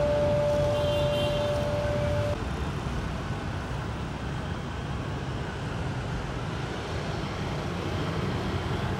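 City street traffic noise: a steady hum of passing motorbikes and cars. A steady ringing tone carries on through the first two seconds and then cuts off.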